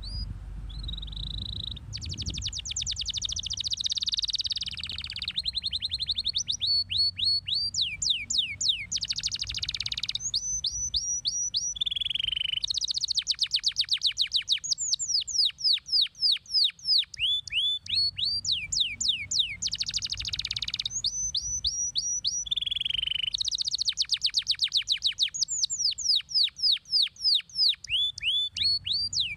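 Domestic canary singing a long, continuous song: rapid trills and quick runs of repeated falling notes, switching to a new phrase every second or two, over a faint low rumble.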